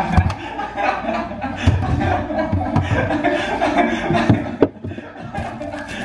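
A woman chuckling and laughing in short, broken bursts.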